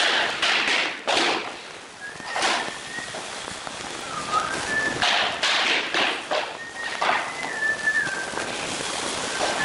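Wooden floor planks being knocked and pressed together as they are fitted into place: irregular sharp wooden knocks and taps in clusters, the thickest a little past halfway. A thin whistled tone sounds on and off behind them.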